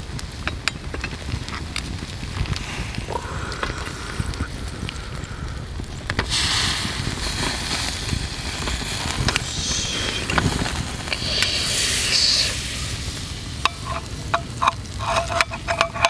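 Scallop in its shell and shrimp sizzling on a wire grill over wood-fire coals, the butter and soy sauce in the shell bubbling, with the fire crackling. The sizzle swells louder about six seconds in, and a few sharp clicks sound near the end.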